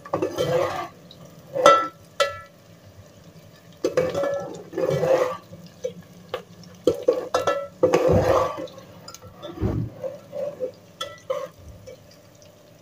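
A slotted steel spoon stirring sliced onions frying in oil in an aluminium pot, scraping and clinking against the pot in irregular bursts.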